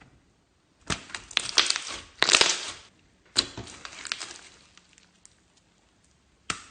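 Slime being squeezed and worked by hand, crackling and popping in two spells of a second or two each, then a single sharp click near the end.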